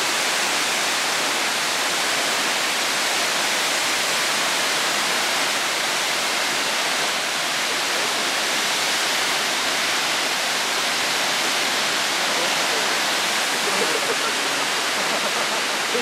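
Steady, unbroken rush of Ōko Falls, a tall waterfall pouring down a rock face.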